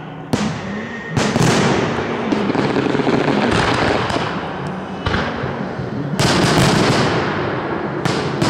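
Aerial fireworks shells bursting in a string of about six bangs, each trailing off slowly, heard from far off; the loudest come about a second in and past the middle.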